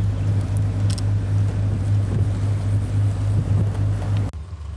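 Twin Yanmar marine diesel engines of a Mainship trawler running steadily under way: a deep, even drone with wind rushing over the open helm. About four seconds in, the sound drops off abruptly.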